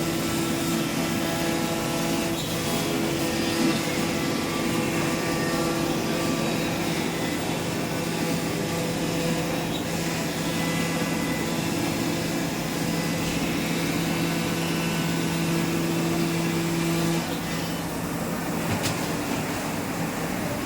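CNC machine running with a steady hum over an even mechanical noise. The hum cuts off suddenly about three seconds before the end, leaving the noise a little quieter.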